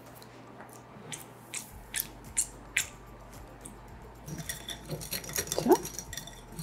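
A few separate sharp clicks, then from about four seconds in a wire whisk clinking quickly and steadily against a glass bowl as it stirs chocolate ganache.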